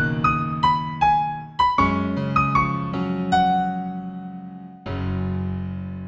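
Solo piano music in F major: a slow melody of single notes stepping mostly downward over held low chords, then a final chord struck near the end that rings on and fades.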